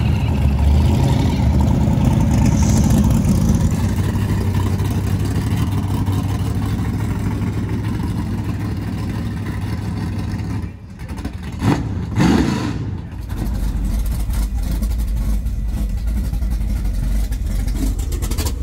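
Race car engines running loud and rumbling, with a sharp blip of revs about twelve seconds in. After that, a deep, steady idle from the race pickup truck up close.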